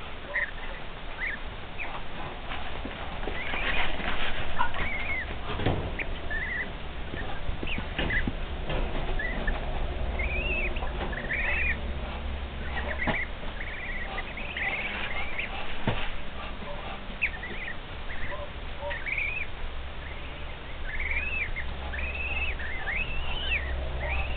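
Cotton Patch goslings peeping: short, high, arching chirps, a few at a time, throughout. Now and then there is rustling and a soft knock, loudest about four seconds in.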